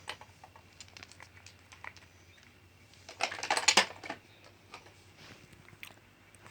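Small plastic toy figurines being handled: scattered light clicks and taps, with a louder clatter about three seconds in.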